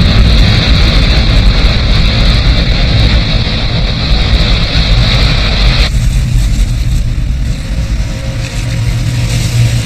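Loud surf of heavy ocean waves breaking, a dense rushing wash. About six seconds in, the hiss of the spray drops away suddenly, leaving a lower, duller wash of surf.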